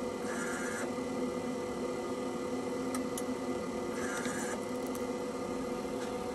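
TBK-288 phone screen separator running with a steady machine hum, joined by two brief higher whirs, just after the start and about four seconds in, and a few faint clicks around the three-second mark.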